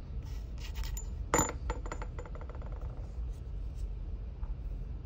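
Small metal tool handling: one sharp metallic click with a brief high ring about a second and a half in, followed by a quick run of fine ticks that die away, over a low steady hum.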